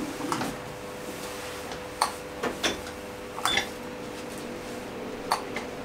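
A few light clicks and taps as a person shifts on a padded treatment table, over a steady electrical hum.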